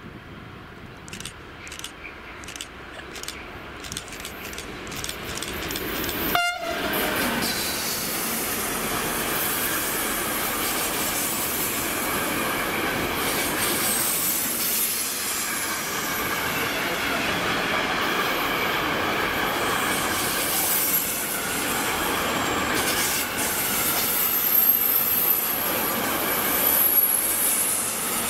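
Container freight train passing on curved track. The wheels click as it approaches, and the locomotive gives a brief horn toot about six seconds in. The loaded flat wagons then roll past with wheels squealing on the curve.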